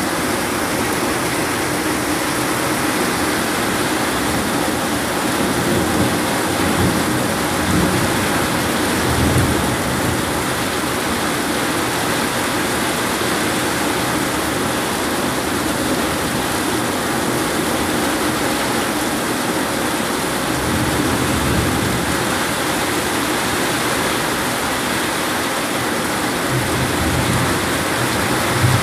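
Heavy tropical downpour, a steady dense hiss of rain, with water streaming off the roof eave. Low rumbles swell and fade a few times, about a third of the way in, past the middle and near the end.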